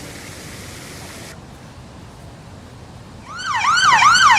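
Steady hiss that cuts off suddenly a little over a second in. About three seconds in, a police siren starts in a fast yelp, its pitch sweeping up and down about two to three times a second, and becomes the loudest sound.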